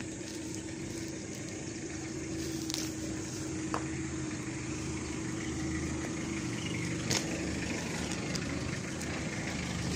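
A motor vehicle's engine idling steadily, with a constant low hum. A few short clicks are heard over it.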